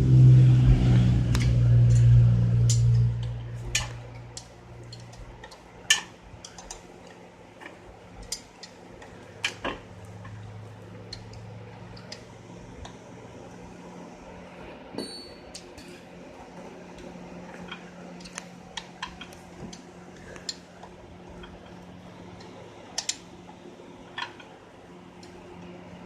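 Light metal clinks and taps of hand tools on engine parts, scattered every second or two, as a stuck head gasket is pried loose. A faint steady hum runs under them. A loud low drone fades out over the first few seconds.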